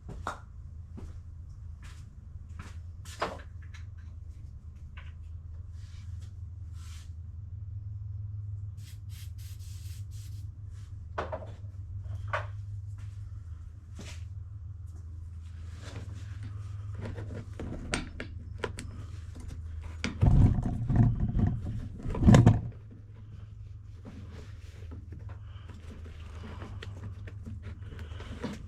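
Hand tools and metal suspension parts being handled: scattered clicks and knocks over a steady low hum, with two louder spells of low knocking, each about a second long, about two-thirds of the way through.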